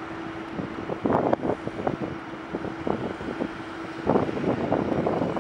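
Twin turboprop engines of an ATR 72-600 airliner running as it taxis: a steady drone that comes and goes, under irregular gusts of wind buffeting the microphone.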